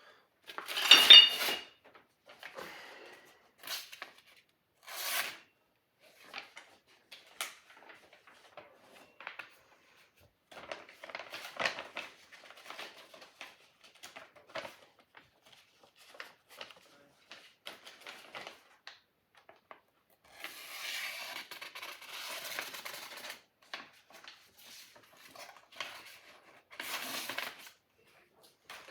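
Irregular clinks, scrapes and rubs of a metal blade being handled and worked, with a louder clink about a second in that rings briefly, and a longer scraping stretch past the middle.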